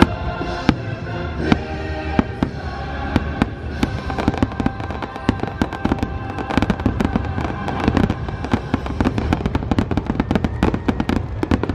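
Fireworks display: a dense run of shell bursts and crackles that grows thicker and quicker through the second half, with music playing underneath.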